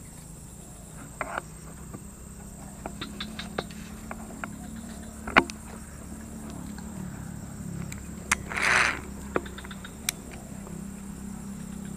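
A tegek fishing pole being handled and cast: scattered sharp clicks and knocks, with a short rustling burst about nine seconds in. A steady low hum runs underneath.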